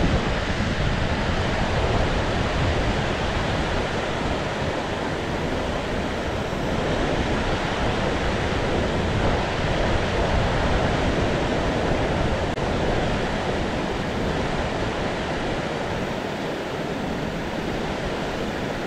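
River water spilling over a low concrete weir, a steady rushing noise.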